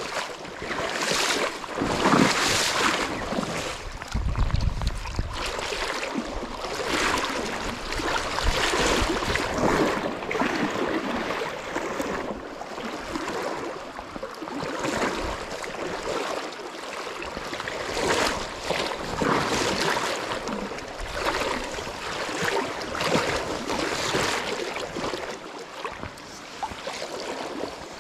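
Shallow river water rushing over stones, with repeated sloshing splashes every second or two from someone wading upstream in chest waders. A low gust of wind buffets the microphone about four seconds in.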